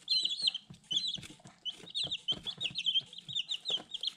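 Young chicks peeping: a rapid run of short, high-pitched chirps with a brief lull about a second in, and light taps among them.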